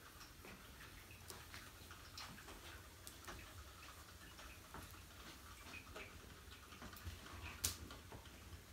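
Faint, irregular clicks and ticks over a low steady room hum, with one sharper click near the end.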